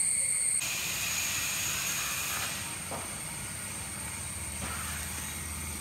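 A shrill insect chorus of several steady high tones stops abruptly about half a second in. It gives way to a steady hiss with a faint high tone running through it.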